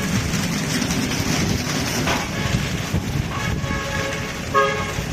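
Rollover car wash machine running with a steady rushing noise. Two short horn-like tones sound over it, one a little past three seconds in and a shorter, louder one near the end.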